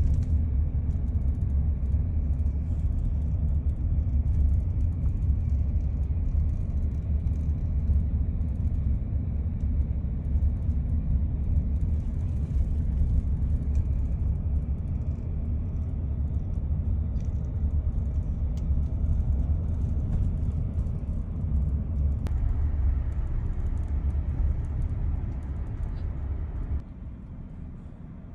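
Steady low rumble of a car moving, heard from inside the cabin, dropping off suddenly near the end as the car slows or stops.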